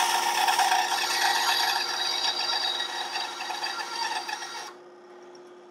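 Ryobi BS904G 9-inch band saw cutting straight through a 2x4: the blade rasps steadily through the wood over a steady motor hum. Nearly five seconds in, the blade clears the board and the rasping stops, leaving only the saw running, much quieter.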